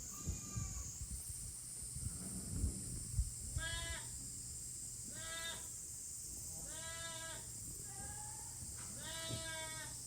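Young goats bleating: about five separate bleats a second or so apart, each under a second long, over a steady high hiss. A few low knocks come in the first few seconds.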